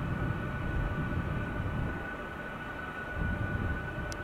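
Boeing C-17 Globemaster III's four Pratt & Whitney F117 turbofans running at low power while it lines up for take-off: a steady high whine over a low rumble that swells and fades.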